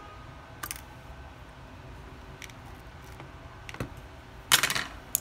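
Small sharp clicks and taps of metal tweezers and plastic phone parts as a smartphone's display panel is worked loose and lifted from its frame, then a louder crackling scrape a little before the end and one last click.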